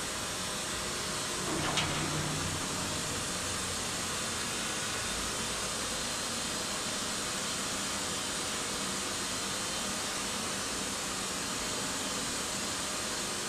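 Service lift descending inside a Vestas V80 wind turbine tower: steady, even mechanical noise from the lift hoist running, with one sharp click about two seconds in.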